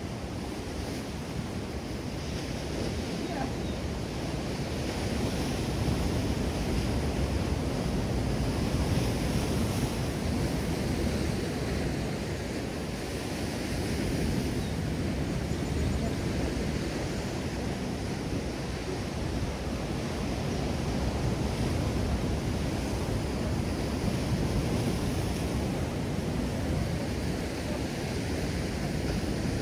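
Ocean surf washing in and out, swelling and easing every few seconds, with wind on the microphone.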